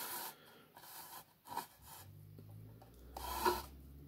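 Hard plastic 1:18-scale toy blast-shield pieces sliding and scraping on a tabletop as they are shifted and set down by hand, in a few short scrapes, the loudest near the end. A low steady hum comes in about halfway.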